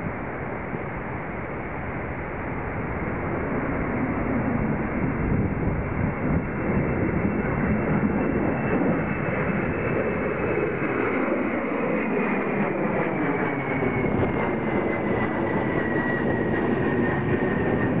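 Twin turbofans of an Embraer regional jet climbing out overhead after takeoff: a steady jet roar that grows a little louder, with a whine that slides down in pitch over the last several seconds as the plane passes over. Wind buffets the microphone.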